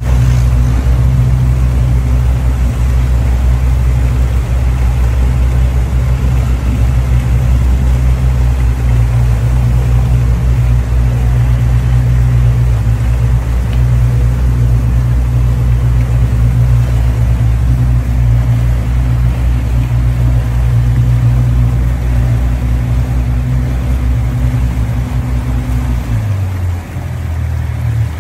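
A boat engine running loud and steady with a deep, even hum; near the end its note drops lower.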